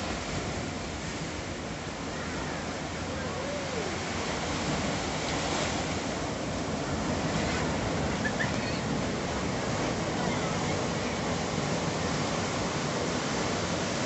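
Ocean surf breaking and foaming up a sandy shore: a steady rush of waves that grows a little louder about a third of the way in.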